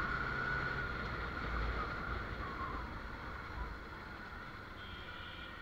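Motorcycle riding along a road: steady engine and wind noise, growing gradually quieter toward the end.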